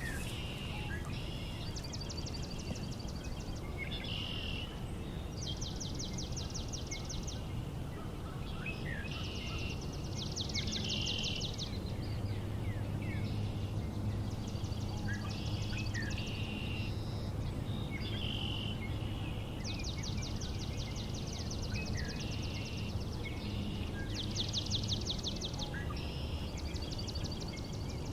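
Songbirds singing outdoors: one bird repeats a rapid, high trill about a second long every couple of seconds, with other short chirps between. A low steady hum comes in about twelve seconds in and fades out a little before the end.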